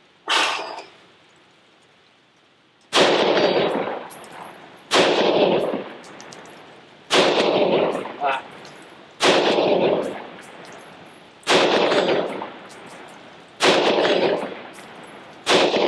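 Remington 7615 pump-action .223 rifle fired seven times, about two seconds apart, each shot ringing out with a long echo under the range shed's metal roof, with the pump action clacking between shots. One sharp knock comes shortly before the first shot.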